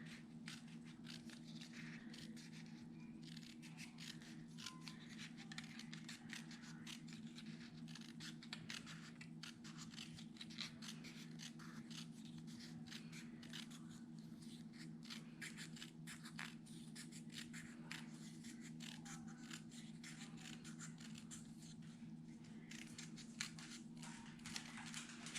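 Faint, irregular snips of scissors cutting strips of paper, with paper being handled, over a steady low hum.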